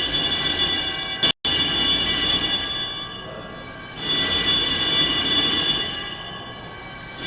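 Fire alarm bell ringing, loud and metallic with many overlapping bell tones, swelling in long rings of a few seconds and easing between them. It is ringing at the slow alert rate rather than the faster evacuation rate. The sound cuts out for an instant about a second in.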